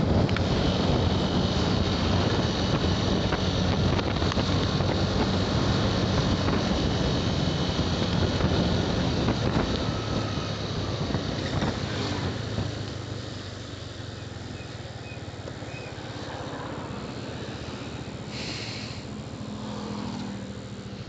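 Motorcycle on the move, with wind rushing over the microphone over the engine's running; about twelve seconds in the wind noise falls away as the bike slows, leaving a quieter steady engine hum.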